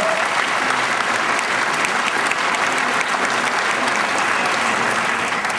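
Applause from a large audience: many hands clapping together in a dense, steady patter that starts to die away at the very end.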